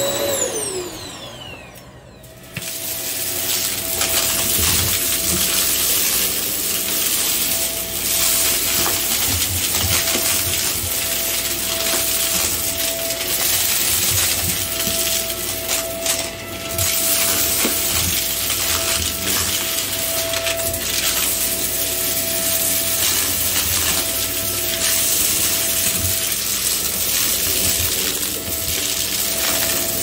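Hoover upright vacuum switched off, its motor whine falling in pitch and dying away over about two seconds. At about two and a half seconds a Shark Rocket upright vacuum starts and runs with a steady whine over carpet, with frequent rattling clicks.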